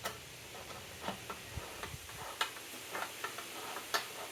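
Hand tools clicking and tapping on metal as a nut on a Vespa tank fitting, held in a vise, is tightened: a dozen or so short, irregularly spaced clicks.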